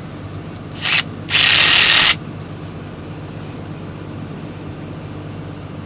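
Snap-on long-neck Brute cordless ratchet triggered with no load: a quick blip, then a run of just under a second.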